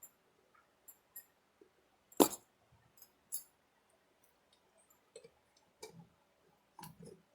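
A spoon clinking and knocking against the pot and plate while food is lifted out of a seafood boil: a handful of separate knocks, the sharpest about two seconds in.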